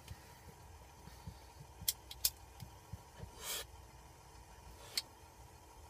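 Quiet car cabin with a low steady rumble, a few faint clicks, and a short breathy draw on a joint about three and a half seconds in.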